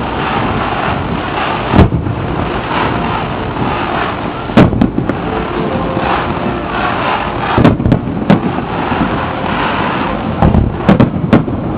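Fireworks going off: sharp bangs of aerial shells at irregular intervals, several in quick succession near the end, over a steady rumbling background noise.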